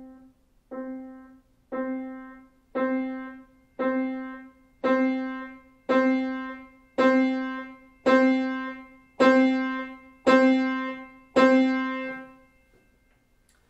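Steinway Model B grand piano: a single note near middle C struck about twelve times, roughly once a second, rising step by step from the very softest to the very loudest sound. Each stroke comes out louder and brighter than the one before and rings down before the next.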